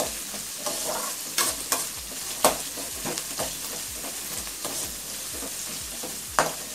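Sliced onions, peanuts and dals frying in oil in an aluminium kadai, sizzling steadily while a metal spatula stirs them. The spatula scrapes the pan throughout and clacks against it sharply a few times, loudest about two and a half seconds in and again near the end.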